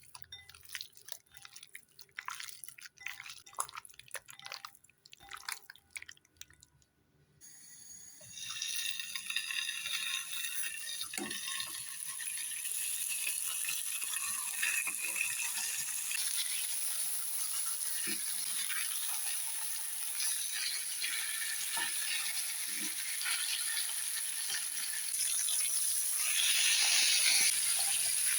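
Scattered clicks and taps, then from about eight seconds in a steady sizzle that grows louder: pork neck grilling on a hot surface.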